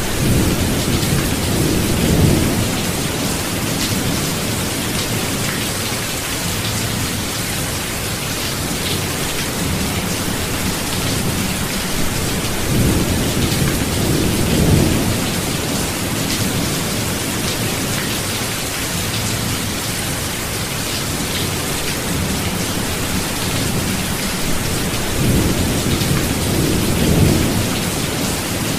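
Thunderstorm: steady heavy rain hissing throughout, with rolling thunder rumbling up three times, about two seconds in, around the middle, and near the end.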